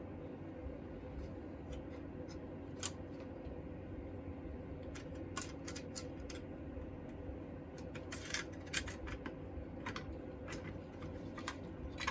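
Scattered small clicks and taps of parts being handled, some in quick clusters, over a steady low hum.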